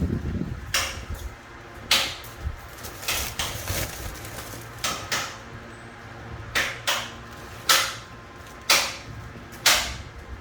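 Irregular sharp clacks and knocks of hard objects striking during tiling work, about one a second, some in quick pairs, over a low steady hum.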